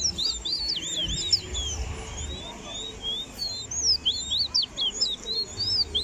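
Caged songbirds singing in a ramping match: a fast, unbroken run of high whistled notes, each sliding sharply up or down.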